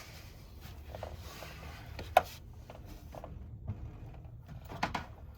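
Scattered clicks and knocks of metal engine parts being handled during valve-cover removal: one sharp click about two seconds in and a quick pair near the end, over a low steady hum.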